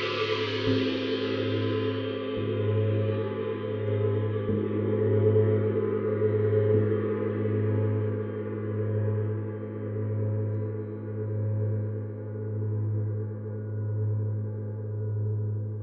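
Neptune planet gong played with a soft mallet: four gentle strokes in the first seven seconds keep a dense ringing wash going. It then rings on by itself, the high overtones fading away while the deep hum slowly swells and fades.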